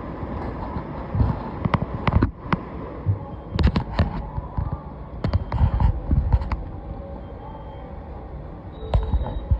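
Steady restaurant background din with scattered sharp knocks and clattering, several in quick succession around the middle and one more near the end.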